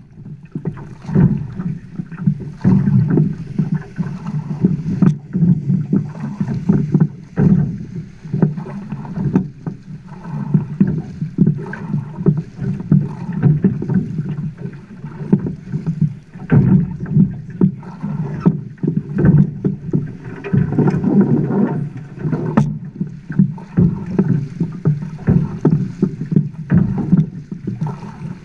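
River water rumbling and slapping against the side of a boat, with irregular thumps, and wind buffeting the microphone.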